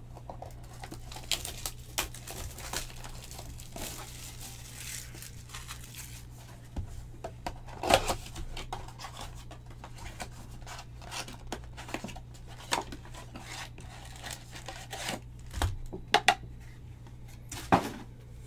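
A cardboard Panini Mosaic basketball card box being opened by hand: wrapping torn and crinkled, with scattered taps and knocks, the loudest about eight seconds in.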